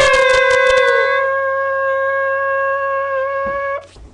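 Several young voices hold one long high note together after a count of three. The others drop out about a second in, and a single voice keeps the note steady for about three more seconds before it cuts off suddenly.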